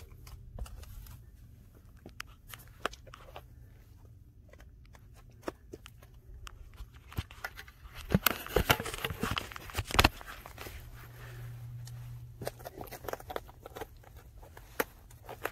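Hiking boots crunching and scuffing on a steep, rocky desert trail: irregular footsteps, with a louder stretch of scuffing on gravel about eight seconds in.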